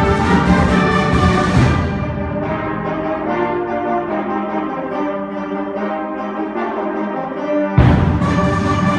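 School concert band playing, led by brass in loud sustained chords. About two seconds in the low end drops away and the band holds softer chords, then near the end the full band comes back in with a sudden loud hit.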